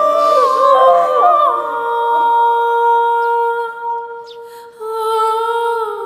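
Slow background music led by a wordless humming voice holding long notes over sustained chords, with a brief lull about four seconds in before new held notes begin.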